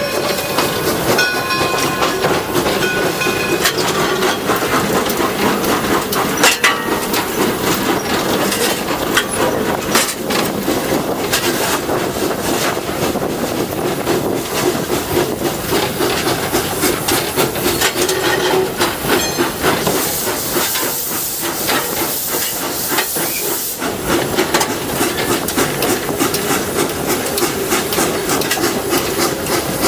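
Detroit & Lima Northern No. 7, an 1897 Baldwin steam locomotive, running with its train: steady running noise with clicking of wheels over rail joints, and a stretch of louder steam hiss about two-thirds of the way through.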